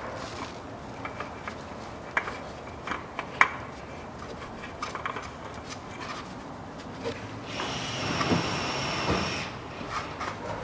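A new spin-on oil filter being screwed onto the engine by a gloved hand: faint scraping and a few small knocks as the canister is turned on its threads, with a longer rubbing sound for about two seconds near the end.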